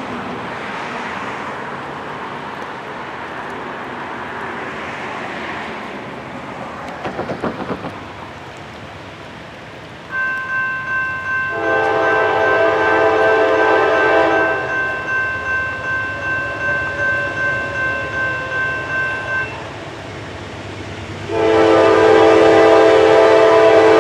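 Approaching Norfolk Southern GE D9-44CW diesel locomotive: a faint steady rumble, then a bell starts ringing about ten seconds in and rings for several seconds. Over it the locomotive's multi-chime air horn gives a long blast of about three seconds, and a second long blast starts near the end, the grade-crossing warning sequence.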